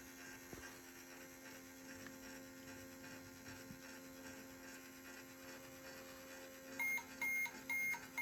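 Toy microwave running its pretend cooking cycle: a faint, steady electronic hum, then short high beeps about two a second starting near the end, signalling that the cycle is finished.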